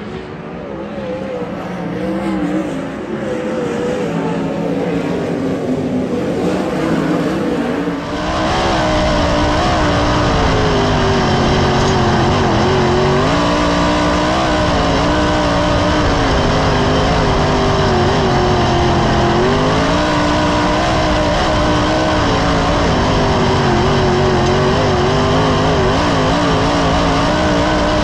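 Winged sprint cars racing on a dirt oval, their engines heard from across the track, rising and falling in pitch. About eight seconds in, the sound cuts to one car's own onboard sound: much louder, its V8 revving up and dipping through each turn under a dense rush of noise.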